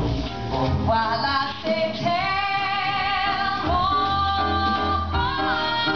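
Live swing band music with horns, and a female voice holding long notes from about two seconds in.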